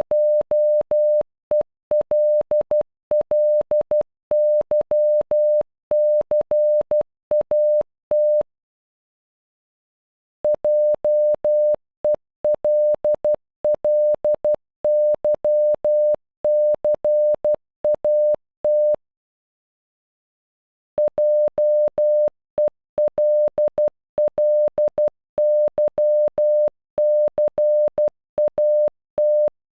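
Morse code beeps: a single steady tone of about 600 Hz keyed into dots and dashes spelling JELLYCAT (.--- . .-.. .-.. -.-- -.-. .- -). The word is sent three times, with a silent pause of about two seconds between each.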